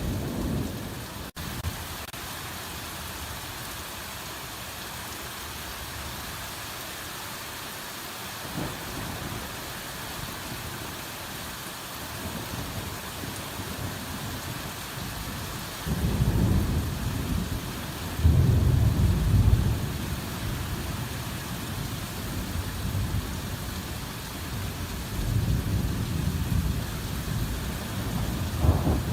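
Hard rain falling steadily in a forest, with low rolls of thunder: two rumbles a little past halfway, then more rumbling near the end.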